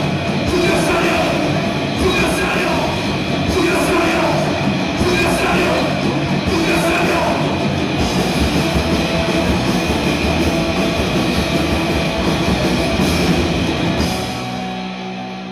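Live Oi! punk band playing loud and fast: distorted electric guitars, bass and drums. Near the end the playing drops away and the sound fades out.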